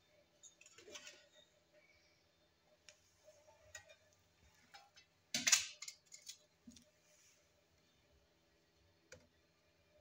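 A bowl of eggs set down inside a microwave oven: light handling clicks and knocks, then one sharp clatter of the bowl meeting the turntable about halfway through, followed by a few lighter taps.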